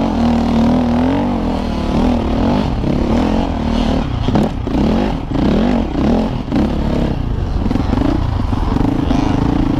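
KTM 450 EXC's single-cylinder four-stroke engine under hard racing throttle, revving up and dropping again and again as the rider works the throttle and gears, with several quick rev rises and dips in the middle.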